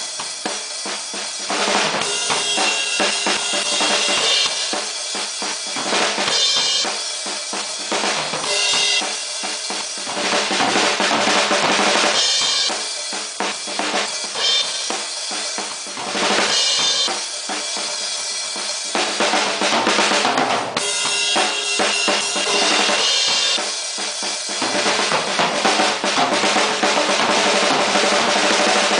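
Acoustic drum kit played continuously: quick strokes on drums, with Zildjian cymbals washing in for stretches of a few seconds and then dropping back. The bass drum comes through thin, with little deep low end.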